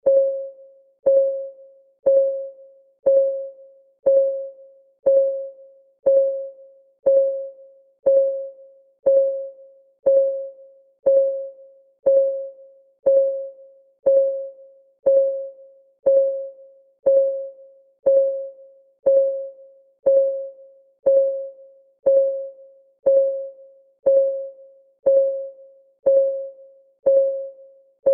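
Countdown timer's clock-ticking sound effect: one short, pitched, plinking tick every second, each ringing briefly and fading, in a steady even rhythm.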